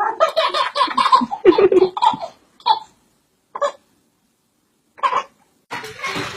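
Laughter in a quick run of short bursts for about two seconds, followed by three short single bursts; a noisier sound starts near the end.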